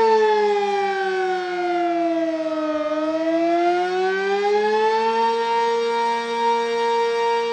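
Sentry 20V2T outdoor warning siren sounding its dual-tone chord. The steady pitch sags over about three seconds, then climbs back up and holds steady again.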